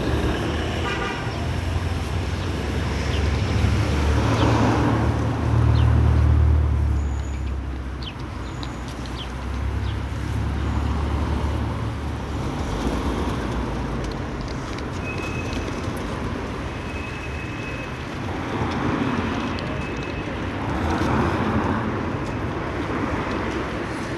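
Motor vehicle running with traffic noise: a low engine rumble, strongest in the first half.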